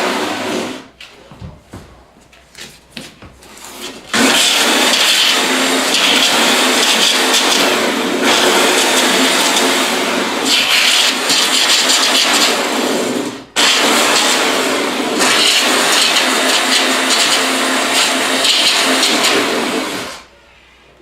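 Belt sander running on the floor, grinding down carpet staples, with a steady motor hum under a harsh rasping that swells at moments. It stops about a second in, starts again about four seconds in, cuts out for an instant about two-thirds of the way through, and stops near the end.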